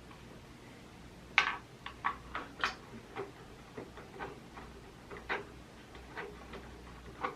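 Irregular light clicks and taps, about a dozen over several seconds, the sharpest about a second and a half in, from hands handling the PlayStation 5 console and its parts.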